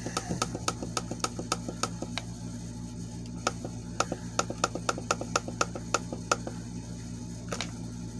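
Spartus digital alarm clock's time-set buttons clicking as they are pressed over and over to step the minutes, quickly at first (about four or five clicks a second), then in slower, sparser presses after about two seconds. A steady low hum runs underneath.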